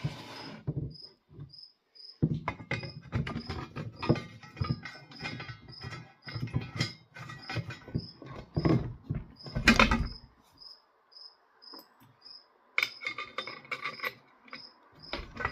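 Clicking, tapping and rattling of small metal parts as the guard, its screws and spacers are fitted to a chainsaw debarker attachment, with one louder knock about ten seconds in. A cricket chirps at an even pace behind it.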